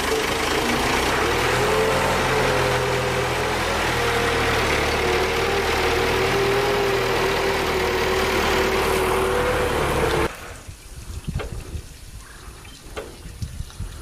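Forklift engine running steadily under a wavering whine, cutting off abruptly about ten seconds in; a quieter stretch with a few light knocks follows.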